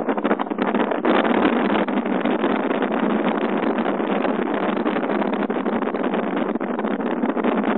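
Wind rushing over a phone microphone held at a moving car's open window: a steady, loud rush with a rapid flutter, mixed with the car's road noise.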